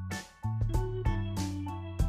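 Instrumental background music with held notes that change every half second or so, dropping out briefly about a quarter of a second in.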